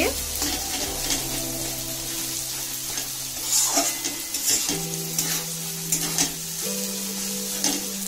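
Fenugreek (methi) paste sizzling as it roasts in ghee in a metal kadhai, with a metal spatula scraping and stirring it against the pan in repeated strokes. Soft held background-music notes run underneath.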